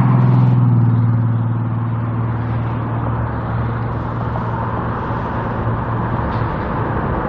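Road traffic: a vehicle's low engine hum, loudest at first and fading away over the first few seconds as it passes, over a steady wash of traffic noise.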